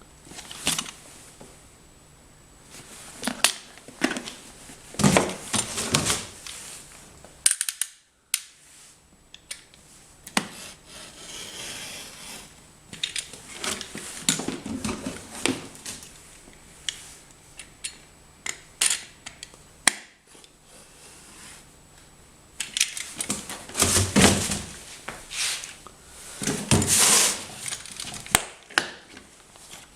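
Unpacking by hand: packaging rustling, with irregular clicks and knocks of hard plastic and metal parts being handled and set down. No motor runs.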